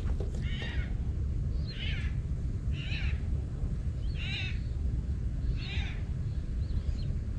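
A bird calling repeatedly: six short, high, mewing calls about one every second, the last one faint, over a steady low rumble.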